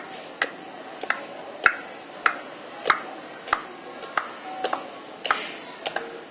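Slime being worked by hand, giving a series of sharp clicks and pops at a fairly even pace, about three every two seconds.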